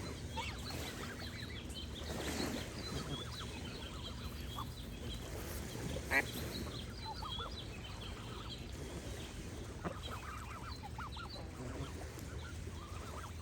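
Goose honking a few times, the loudest honk about halfway through, over continuous songbird chirping and a gentle running-water background.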